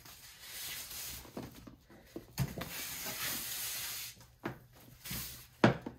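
Rustling of wrapping as a leather handbag and its strap are handled, with a few sharp clicks and knocks, the loudest near the end.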